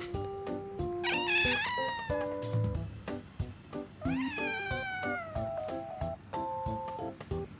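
A young domestic cat meowing twice, the second meow longer, rising and then sliding down in pitch. Soft plucked background music plays under the meows.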